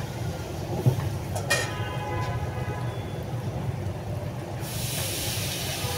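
Pitha batter frying in hot oil in a small metal wok, sizzling over a steady low rumble; the sizzling hiss grows fuller near the end. A metal spatula clinks against the pan about a second in, with a brief ring.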